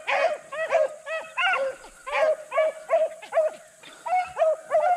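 Hunting hounds baying on a rabbit's track, a quick, unbroken string of short yelping bays, about three or four a second, from more than one dog.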